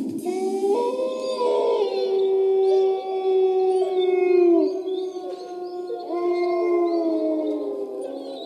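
A wolf howling for the stage wolf: two long, drawn-out howls, the second starting about six seconds in, each bending down in pitch as it dies away.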